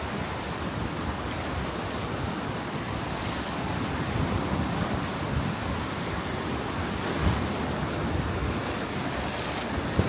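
Small waves washing in and splashing against a rock shelf at the water's edge, with wind buffeting the microphone in low gusts and one brief thump about seven seconds in.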